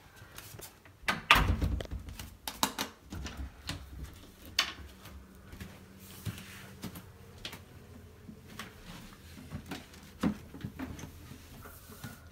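Scattered clicks and knocks of a hinged interior door and things being handled in a small toilet room. The loudest is a low thump about a second in.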